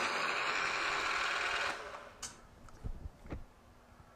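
Milling machine spindle running with an end mill, a steady mechanical whir that cuts off about a second and a half in. After it stops come a sharp click and two dull knocks as the hex collet block is handled in the vise.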